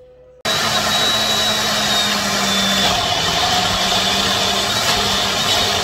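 Ninja Foodi blender motor running at full speed, blending a fruit smoothie in a single-serve cup. It starts suddenly about half a second in, runs steadily, and cuts off abruptly at the end.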